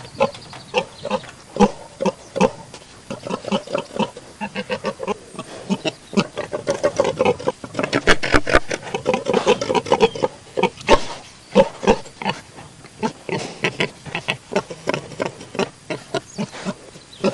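Pigs grunting: many short grunts in an irregular stream, with stretches of overlapping calls from several animals.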